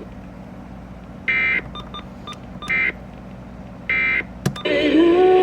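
Three short bursts of EAS digital data tones (the SAME end-of-message code), about a second apart, over a low hum, with faint short beeps between them. A click near the end, then music starts.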